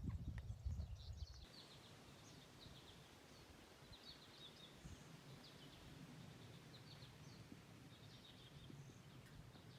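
Quiet outdoor ambience of small birds chirping faintly in short, repeated high calls over a low hiss. A low rumble stops abruptly about a second and a half in.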